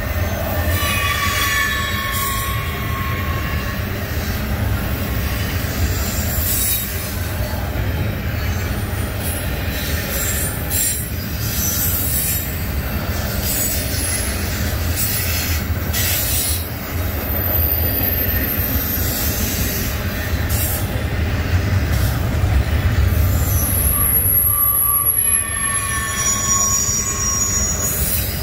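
Double-stack intermodal freight train's well cars rolling past with a steady low rumble of steel wheels on rail. High-pitched wheel squeals come near the start and again near the end, with occasional clanks in between.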